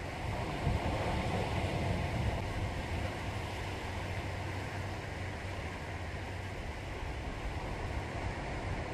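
Seashore ambience: a steady wash of waves and wind noise on the microphone, with a faint steady low hum underneath.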